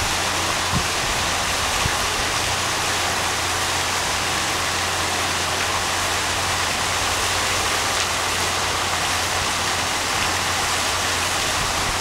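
Artificial waterfall pouring steadily into a pool: an even, continuous rush of falling water, with a steady low hum underneath.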